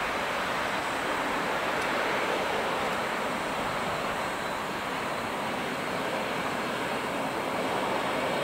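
Jet noise from an Airbus A380's four Engine Alliance GP7270 turbofans as the airliner rolls along the runway: a steady rushing noise that holds level throughout.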